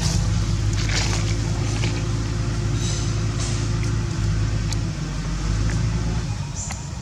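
A motor running steadily with a low, even hum, which eases off about six seconds in; a few faint clicks sound over it.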